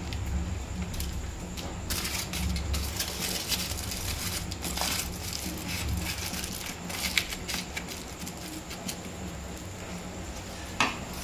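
Kitchen utensils and dishes clinking and knocking in short, irregular clicks, busiest through the middle, with one sharper knock near the end, over a low steady hum.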